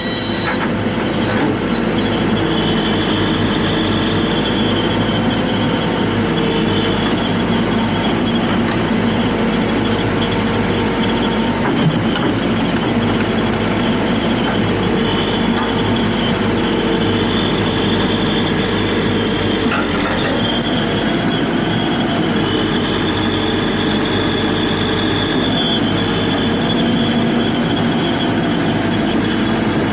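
1995 CAT 436B backhoe loader's diesel engine running steadily, with a whine that steps up and down in pitch every few seconds. There is a single knock about twelve seconds in.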